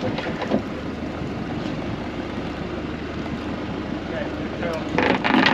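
Small fishing boat's engine running steadily under wind and sea noise while the net is hauled. A brief louder sound comes about five seconds in.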